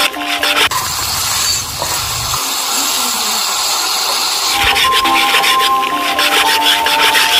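Background music, broken about a second in by a few seconds of steady sizzling hiss from shallots and curry leaves frying in oil in a pressure cooker as they are stirred. The music then returns.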